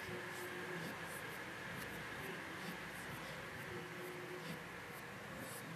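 Faint rustling and scratching of two cats wrestling on a rug, their fur and claws scuffing the fabric in short irregular scrapes, over a steady background hiss.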